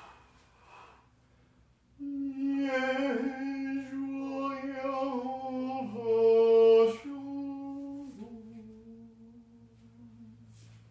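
A voice intoning a slow ritual chant in long held notes, starting about two seconds in and loudest around six to seven seconds in, then dropping a little lower in pitch and fading away near the end.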